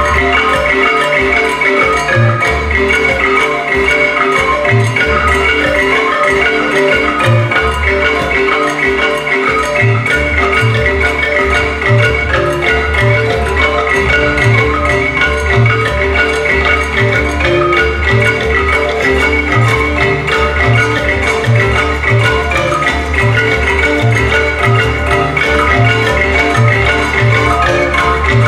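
Recorded African-style dance music: a busy, repeating melody on mallet percussion over a steady bass beat.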